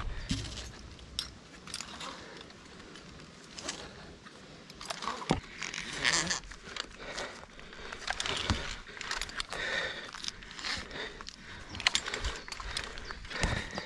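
Rope-ascending gear working during a Frog-system climb: the rope feeding through the hand ascender and chest ascender, with carabiners and metal hardware clinking and scraping in irregular strokes.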